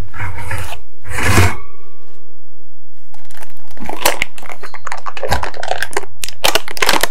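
A metal cake pan is set down on a wire cooling rack with two knocks in the first second and a half. From about three seconds in, the parchment-paper lining rustles and scrapes in repeated short strokes as the baked chocolate sponge is pulled up out of the pan.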